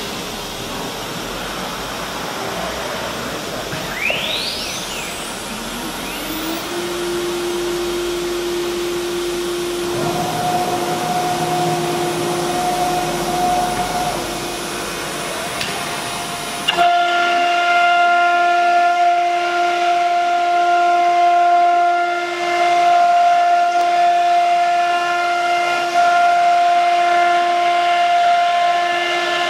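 CNC router spindle spinning up with a rising whine about four seconds in, then running at a steady high whine. About two-thirds of the way through the sound turns abruptly louder, with a stack of higher overtones.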